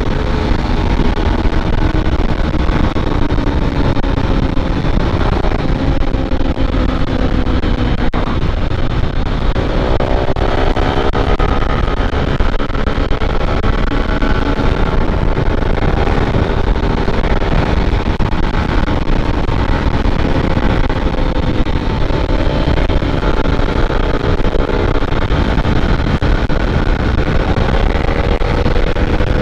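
150 cc single-cylinder motorcycle engine running hard while riding at speed, its pitch climbing about ten seconds in and again near the end as it accelerates, over heavy wind rush on the microphone.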